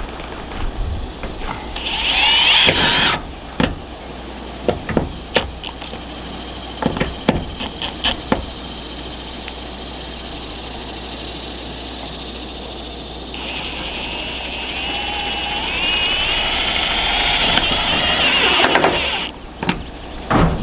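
Power drill driving roofing screws into metal panels: a short whining run about two seconds in, a string of sharp knocks and clicks, then a longer wavering whine from about halfway to near the end.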